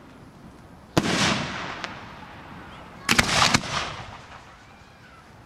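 Aerial fireworks going off: one sharp report about a second in, then a quick run of about five reports around three seconds in, each followed by a fading hiss.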